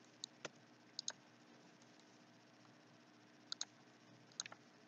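Computer mouse button clicks, a few quick pairs of sharp clicks spread out against near silence, as points are picked to place dimensions in AutoCAD.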